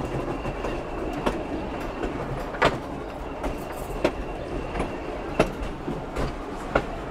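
Passenger train rolling over jointed rail: a steady rumble of car wheels on the track, with sharp clicks at the rail joints about every second and a half.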